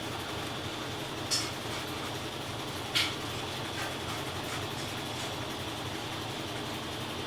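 GE Ecoperformance 15 kg washing machine running steadily in its spin cycle, with a faint high whine. Two short clicks come about one and three seconds in.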